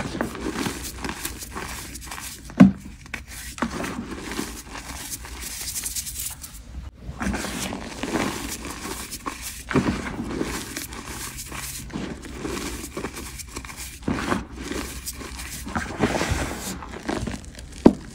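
Gym chalk mixed with charcoal powder being crushed and squeezed by hand, crunching and crumbling in an uneven run, with two sharp, louder crunches: one about two and a half seconds in and one near the end.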